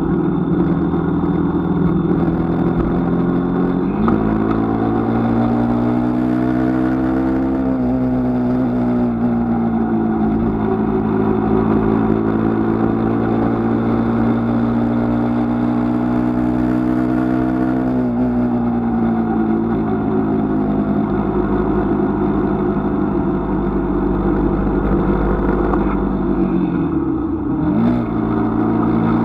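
Engine of a moving road vehicle running under way, with road and wind noise. Its pitch steps up about four seconds in, holds steady, and eases down after about eighteen seconds. Near the end it dips sharply and climbs again.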